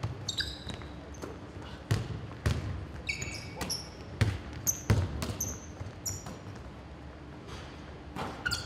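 A basketball bouncing irregularly on a hardwood gym floor as players dribble and pass. Short high-pitched squeaks of basketball shoes on the court come in between the bounces.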